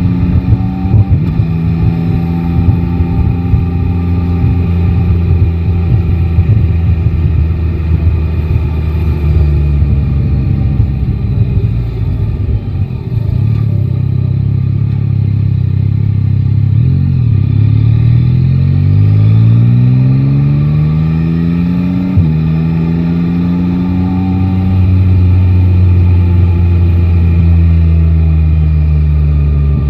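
Yamaha Tracer 9 GT's three-cylinder engine running under way. The engine note eases off, then climbs steadily in revs and drops abruptly about 22 seconds in, as on an upshift, before settling into a steady cruise.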